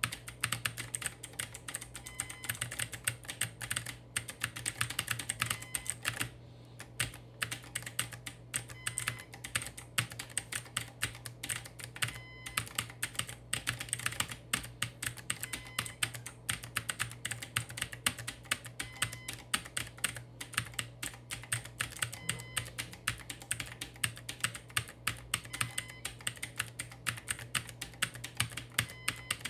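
Fast, continuous typing on a clacky computer keyboard, many keystrokes a second, with a brief pause about six seconds in.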